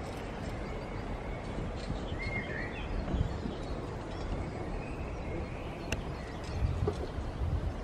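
A bird chirping briefly a few times over steady outdoor background rumble.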